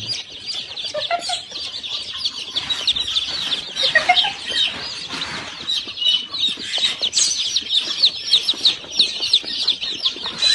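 Many birds chirping and peeping rapidly and without a break, with a few lower calls about four seconds in.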